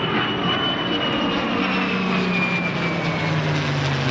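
USAF F-35A Lightning II jet and P-51 Mustang making a formation pass overhead. Their engines give a steady loud noise, with a high whine and a lower drone that both slowly fall in pitch as the two aircraft go by.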